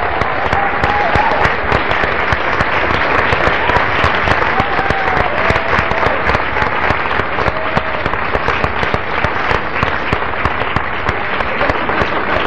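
Audience applauding steadily, dense clapping throughout, with a few voices calling out over it.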